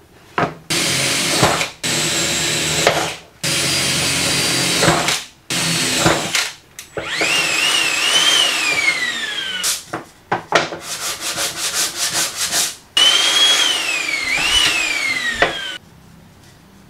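Electric drill boring holes in an MDF plate in a series of short runs, each a steady motor whine with the bit cutting. In the later runs the whine rises and falls in pitch.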